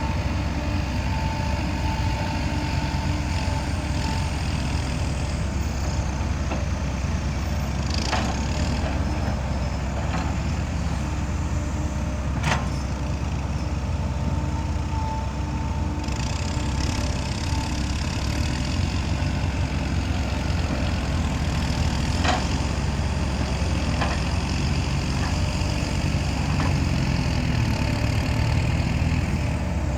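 Dump truck diesel engines running steadily at low revs, with a few sharp knocks about a third of the way in, near the middle and about three quarters through.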